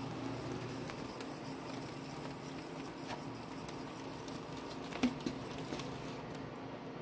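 Servo drives of a CNC-converted knee mill running during the Y-axis homing sequence: a steady hum with scattered light clicks, and a sharper tick about five seconds in.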